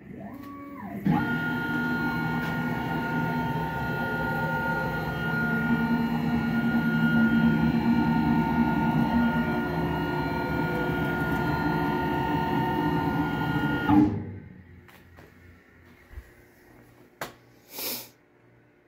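Langmuir Systems MR-1 CNC mill's spindle on a test run after wiring: a brief rising whine as it starts, then a steady whine at speed for about thirteen seconds before it shuts off and winds down. A few light clicks follow near the end.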